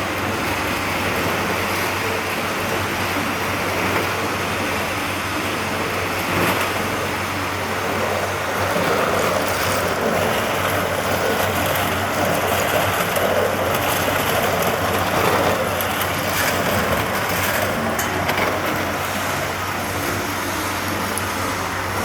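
Steady mechanical running noise with a constant low hum underneath.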